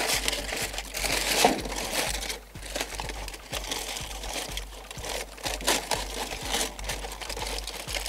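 Aluminium foil crinkling and rustling as hands fold back the foil covers on trays of ribs, in irregular crackles.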